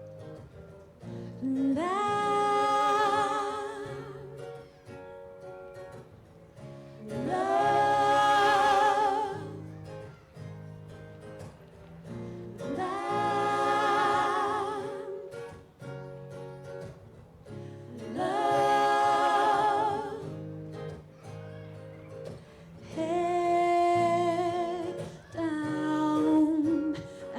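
A live vocal group singing long, held phrases over guitar chords. There are five phrases of a few seconds each, with short gaps between them.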